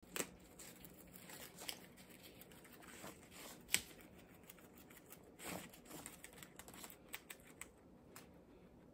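Guinea pigs chewing and tearing fresh leaves, with faint, irregular crunching and the rustle of the leaves.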